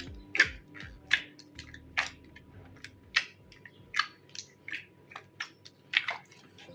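Slime being squished and worked by hand, giving short wet crackling pops about once a second with smaller clicks between.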